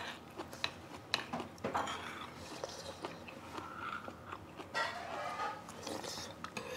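Quiet eating sounds: chewing, with scattered light clicks of metal spoons against earthenware stone pots.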